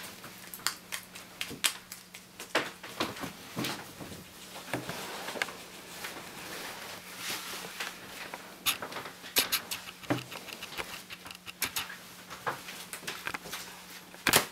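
Irregular light clicks, taps and rustles of hair-product packets and box packaging being handled.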